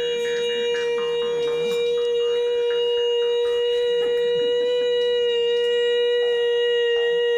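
A harmonica played in cupped hands, holding one long steady note, with fainter short notes shifting beneath it.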